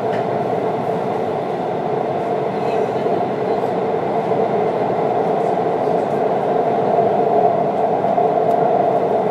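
Shinbundang Line subway train running at speed through a tunnel, heard from inside its last car: a steady, loud rumble of wheels on rail and running gear, with a steady hum. It grows slightly louder a little after the middle.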